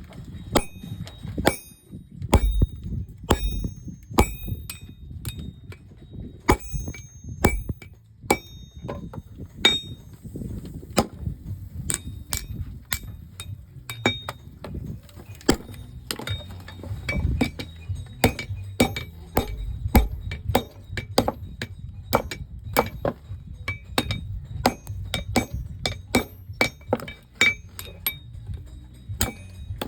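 Hand hammer striking iron on an anvil while a crowbar is forged by hand: a long run of ringing metallic blows at an uneven pace of one to three a second, over a low rumble.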